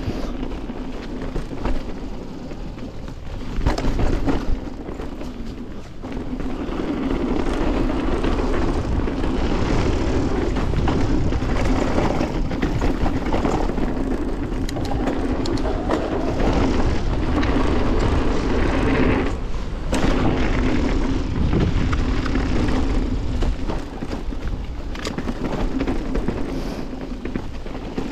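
Canyon Torque:ON electric mountain bike descending a dirt trail: tyres rolling over dirt and rocks and the bike rattling over bumps, with wind rushing over the camera's microphone. It grows louder about six seconds in as the speed picks up, with a sharp knock from a hard hit about twenty seconds in.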